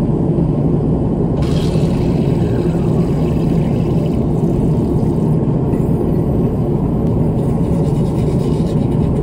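Steady, loud rumble of an airliner in flight heard inside the lavatory: continuous engine and airflow noise, strongest in the low range.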